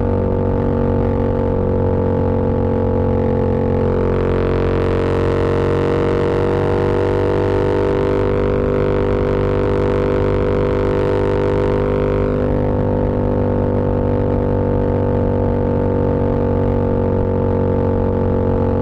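Yamaha MT-07's parallel-twin engine and exhaust running at a steady speed, a continuous droning note that holds nearly one pitch. It gets a little brighter and harsher from about a quarter of the way in to about two thirds of the way through, then settles back.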